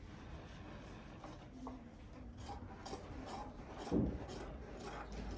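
Faint rubbing and scraping of yarn being worked by hand at a carpet loom, with scattered light ticks and a louder knock about four seconds in.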